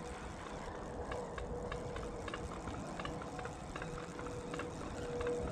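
Spinning fishing reel being cranked to retrieve a lure, giving a light ticking about three times a second over a steady faint hum.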